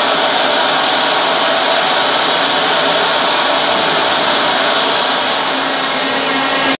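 Steady, loud rushing machinery noise of an offshore oil platform's wellhead deck, an even hiss with faint steady hums in it, dropping out for an instant just before the end.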